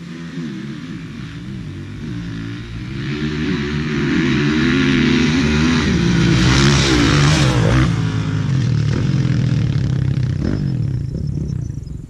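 Kawasaki KX450F four-stroke motocross bike revving up and down as it approaches over a field, growing louder to a peak about six to eight seconds in, then dropping off suddenly and fading as it passes.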